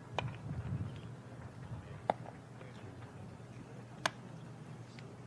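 Three sharp knocks of baseballs striking bat or glove, about two seconds apart, during an infield fielding drill, over a steady low ballpark background.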